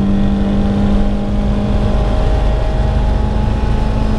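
Four-cylinder engine of a Citroën hatchback heard from inside the cabin, held at high revs under power. Its note wavers briefly about halfway through, then steadies again.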